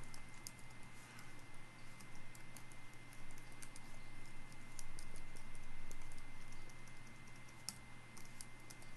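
Computer keyboard typing: slow, uneven single keystrokes, over a steady low hum.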